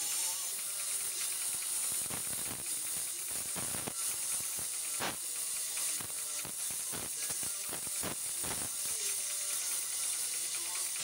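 Gas welding torch hissing steadily as it heats a cast brass horse for brazing with a filler rod. A run of irregular clicks and taps comes in about two seconds in and stops near the end.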